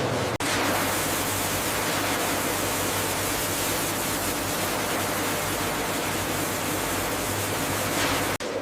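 Loud, steady rushing noise with no tone or rhythm, dropping out briefly just after the start and again near the end.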